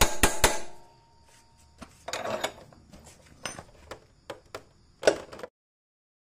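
Metal wrench work on a motorcycle rear shock absorber's upper mounting nut: quick metallic clicks about four a second that stop about half a second in, then scattered faint clinks and a knock about five seconds in. The sound then cuts out to dead silence.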